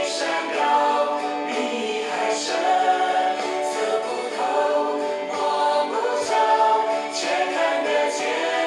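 Recorded Mandarin Christian worship song: voices singing a flowing melody in harmony.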